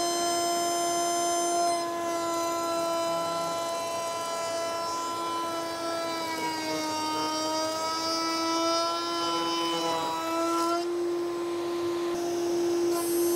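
Router in a router table running at full speed with a steady high whine, a slot-cutting bit cutting a groove along the edge of a board. The pitch sags from about six to ten seconds in as the bit takes the load of the cut, then climbs back.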